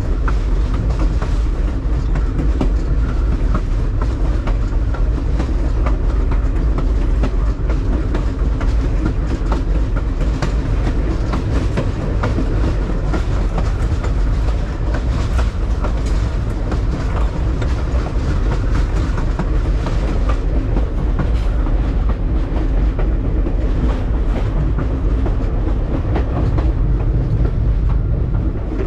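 Passenger rail car rolling along the track: a steady rumble of wheels on rails with frequent irregular clicks and rattles.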